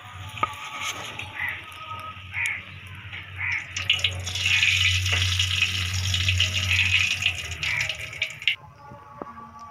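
Samosas deep-frying in hot ghee: a steady sizzle over a low hum, loudest in the middle and cutting off abruptly near the end.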